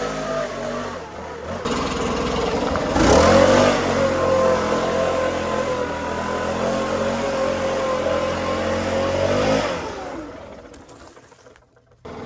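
Gas backpack leaf blower running, throttled up to full speed about three seconds in and held there. Near the end the engine pitch falls and the sound winds down and dies away.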